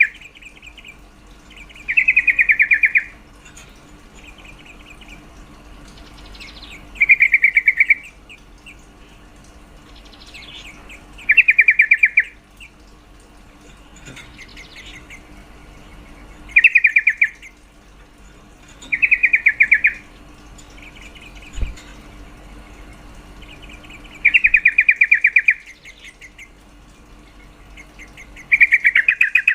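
Female yellow-vented bulbul (trucuk) calling: loud, rapid chattering trills about a second long, repeated every two to five seconds, about seven times. It is a female's call that excites males into singing.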